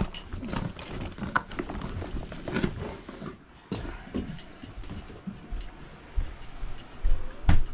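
Handling noise of plastic snorkel fins being carried: rustling with irregular light clicks and knocks, and one louder thump near the end.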